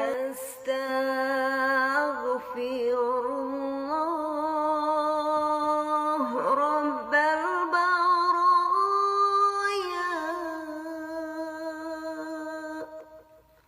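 A single voice chanting the Arabic istighfar in long, drawn-out melismatic phrases, holding wavering notes that step up and down in pitch, then fading out near the end.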